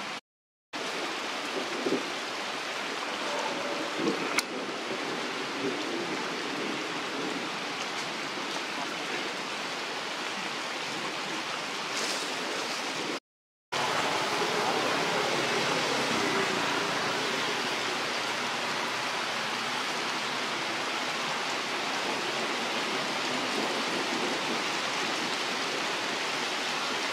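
Steady rushing outdoor noise with a few faint knocks; the sound drops out briefly twice, about half a second in and about halfway through.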